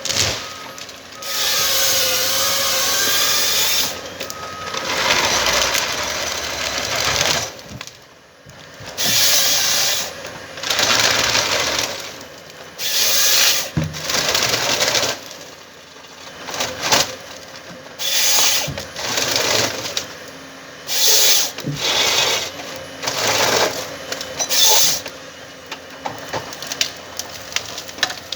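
Komatsu 931XC harvester with a C144 harvester head processing timber: about a dozen loud, noisy bursts of a second or two each over the machine's steady running.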